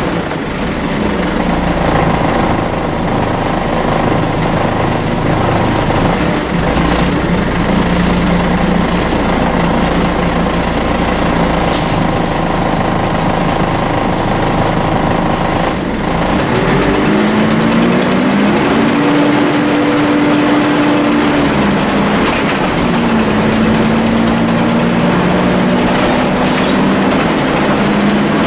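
Volvo B10BLE bus's rear-mounted six-cylinder diesel engine running with the whine the uploader calls a 'hoover'. It runs steadily at first, then after a change about halfway through its note climbs, drops and climbs again as it works up through the gears.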